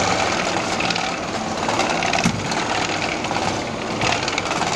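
Hollow chocolate spinning machine running, its mould frames turning on two axes: a steady mechanical whir with fine rapid rattling, and one sharper knock about two seconds in.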